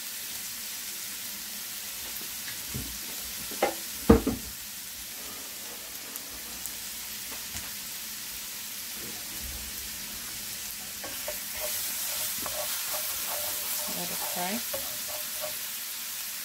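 Crushed garlic frying in hot mustard oil in a non-stick pan, a steady sizzle. There are a couple of sharp knocks about four seconds in. The sizzle grows a little louder and crackly in the second half.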